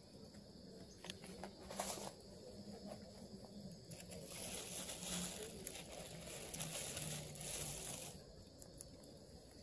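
A rabbit tearing and chewing fresh dandelion leaves, with leafy rustling and crunching: a sharp crackle about two seconds in and a longer spell of rustling in the middle.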